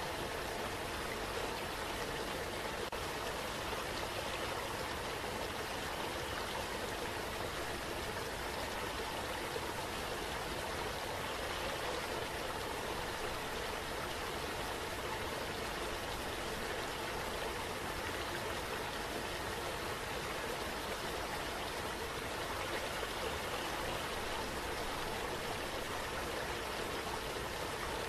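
Steady rushing water, a waterfall ambience that runs evenly without any change or distinct events.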